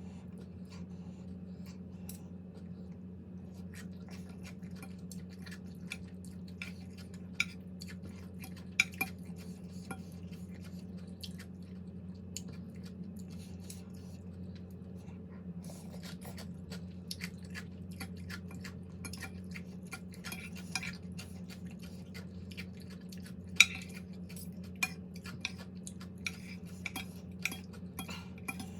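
Cutlery clinking and scraping against dishes with eating sounds, irregular small clicks and a few sharper clinks, over a steady low hum.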